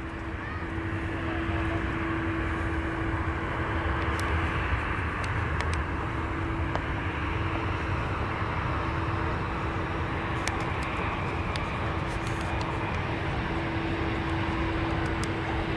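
Jet engines of an Airbus A320 airliner on final approach, a steady drone with a constant hum running through it as the aircraft descends toward the runway.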